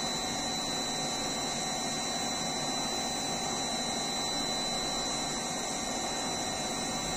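CNC lathe running with the spindle and workpiece turning: a steady, even machine noise with a thin high whine.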